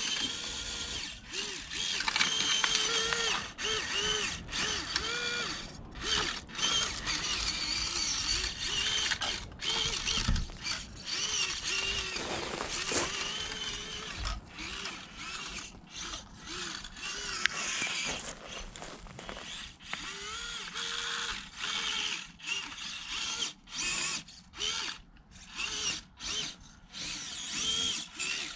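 Orlandoo 1/32 Toyota Tundra micro RC crawler's small brushed motor and gearbox whining in short bursts, the pitch rising and falling as the throttle is worked, with brief pauses between.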